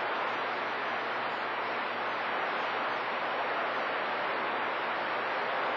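CB radio receiver on channel 28 (27.285 MHz) giving a steady static hiss between skip transmissions, with no station coming through.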